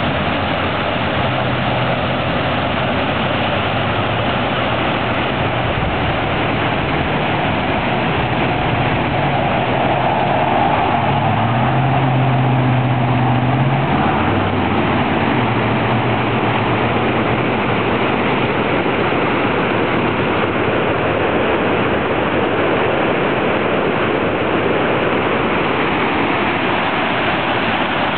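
Monsoon floodwater rushing and churning over a concrete weir in a flooded creek bed: a loud, steady rush of water. A low droning hum comes and goes through roughly the first half.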